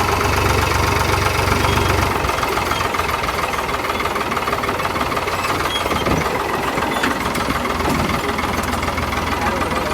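Tractor diesel engine running steadily at idle with a low knocking rumble, the rumble heavier for the first couple of seconds and then easing.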